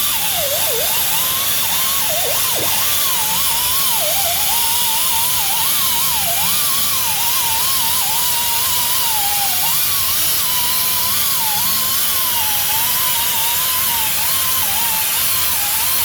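Handheld rotary power tool spinning a cleaning disc against the wheel hub, running steadily, its whine dipping in pitch each time it is pressed harder. It is scouring rust and dirt off the hub's rotor mounting face.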